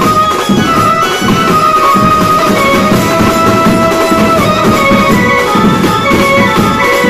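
A festival band playing a devotional song: a held, keyboard-like lead melody over a steady pulsing beat of drums.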